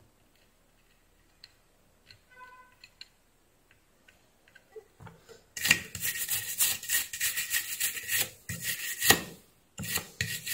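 Quick, rough scraping and rubbing strokes from soldering work on a circuit board. They start about halfway in, stop briefly, then pick up again near the end.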